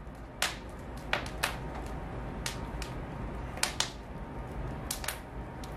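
Irregular sharp clicks and light taps, about a dozen spread unevenly, over a low steady rumble.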